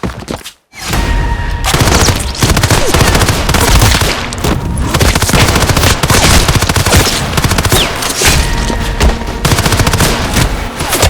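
Sound-designed action-film gunfire: rapid, near-continuous bursts of automatic fire with heavy low booms, starting after a brief silence about half a second in.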